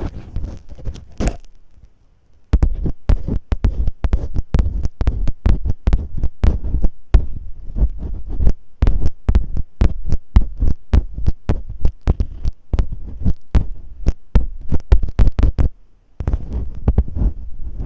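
Masking tape rubbed and scratched against a microphone in ASMR ear-cleaning style: rapid scratchy crackles with deep thumps. The scratching pauses briefly about two seconds in and again near the end.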